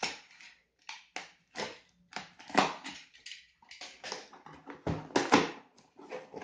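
Clear plastic stretch wrap being slit with a utility knife and pulled off a cardboard box: irregular crinkling and scraping rustles, loudest a little over two and a half seconds in and again just past five seconds.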